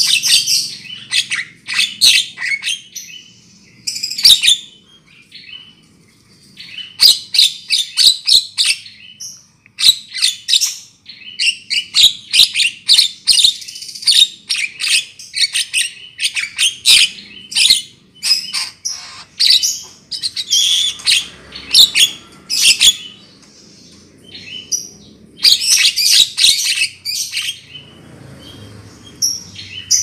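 Javan myna (jalak kebo) lure-call recording: bursts of rapid chattering calls lasting a few seconds each, with short pauses between them.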